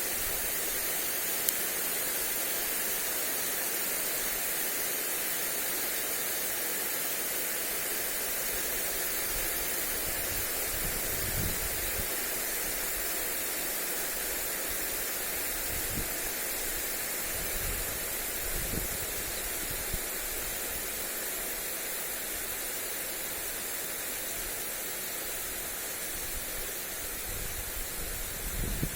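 Lawn sprinkler spraying water onto grass, a steady hiss. A few brief low gusts of wind hit the microphone in the second half and near the end.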